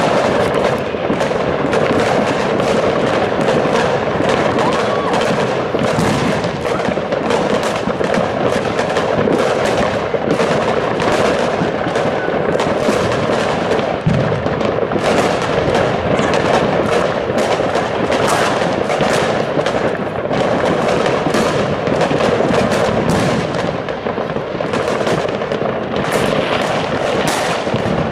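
A dense, unbroken barrage of fireworks and firecrackers going off, with many rapid, overlapping bangs and crackles and no pause.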